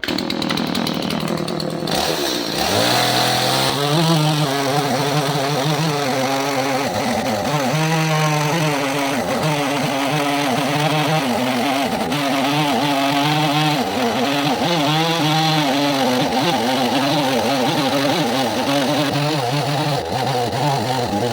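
Two-stroke petrol chainsaw running at high revs while cutting into a walnut log. The engine pitch climbs about two seconds in, then holds, wavering as the chain works through the wood, and the sound cuts off suddenly at the end.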